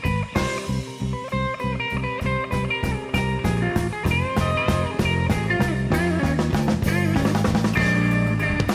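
Rock music with guitar and drums over a steady beat; an instrumental stretch with no singing.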